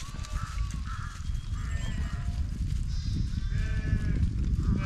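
A flock of sheep bleating, several animals calling at different pitches with wavering, quavering cries, over a steady low rumble.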